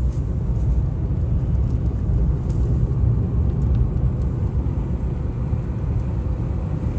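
Steady low rumble of a car driving along at road speed, heard from inside the cabin: engine and tyre noise.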